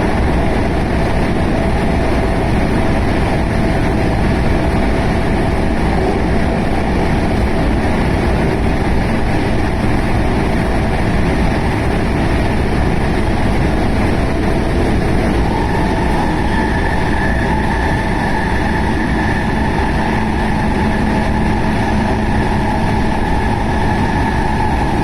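JR West 221 series electric multiple unit running along the line, heard from the front of the train: a steady, loud rumble of wheels on rail and running gear. A steady whine joins about two-thirds of the way through.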